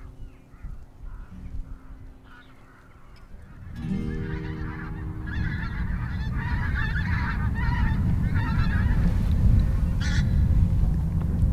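A flock of pink-footed geese calling overhead, a dense chorus of honking calls that sets in about four seconds in and fades near the end, over a low rumble of wind.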